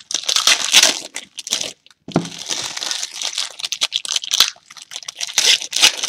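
Foil wrapper of a trading card pack crinkling and crackling as it is torn open and crumpled by hand, in uneven bursts with short pauses.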